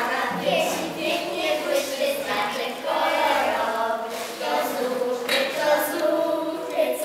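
A small group of children and teenage girl scouts singing a scout song together into handheld microphones.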